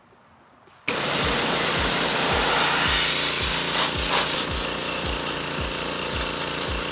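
A pressure washer cuts in about a second in: a loud hiss of the high-pressure jet blasting the fired ceramic shell off a bronze casting, with a regular low pulse underneath, about two to three a second.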